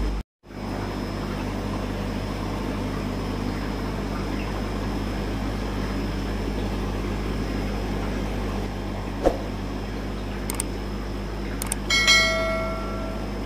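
Steady hum and hiss, which cuts out briefly at the start. Then a sharp click and a few small clicks, and near the end a bell-like notification chime that rings and fades: the sound effect of a subscribe-button animation.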